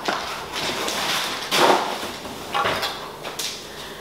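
Kitchen prep noises: a knife knocking on a cutting board as green beans and carrots are chopped, among several scraping and knocking handling sounds, the loudest about one and a half seconds in.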